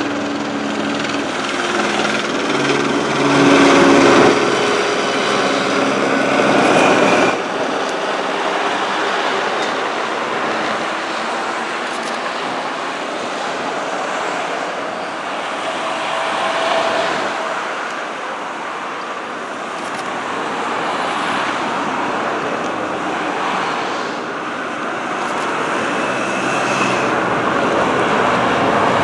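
Steady motorway traffic: the tyres and engines of hearses, cars and escort motorcycles driving past below, swelling a little as vehicles pass. A low engine drone at the start stops about seven seconds in.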